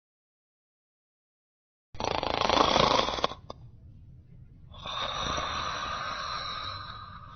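Human snoring, added as a sound effect: silence, then two loud snores, the first about two seconds in and the second, longer one a couple of seconds later, with a brief click between them.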